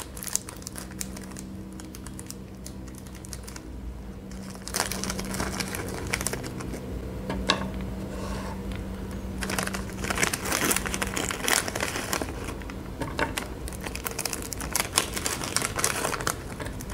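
Crinkling and rustling of a foil-lined snack-chip packet being opened and handled, with small crackly ticks as broken chip pieces are tipped out and set on a wooden board. The crinkling gets louder about five seconds in.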